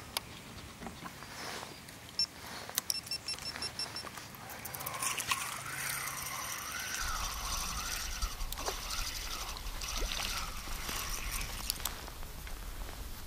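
Spinning fishing reel being wound in with a hooked roach on, a whirring that rises and falls in pitch with each turn of the handle, a little over once a second, with faint ticking alongside, starting about five seconds in and fading near the end. Light water splashing from the fish.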